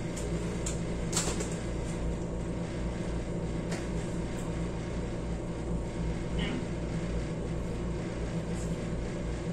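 A steady low machine hum, with a few light clicks and rattles as plastic food containers are opened.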